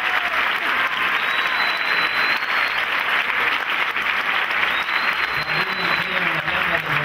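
Audience applauding steadily throughout, with a voice coming in faintly under the clapping near the end.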